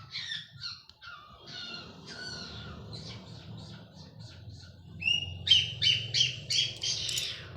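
Birds calling with short, repeated chirps and squawks that get louder and come in a quick series of about three a second near the end, over a steady low hum.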